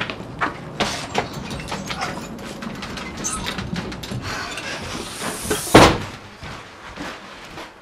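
Footsteps and knocks of people walking through a house, then a door swung and shut hard with one loud bang about six seconds in.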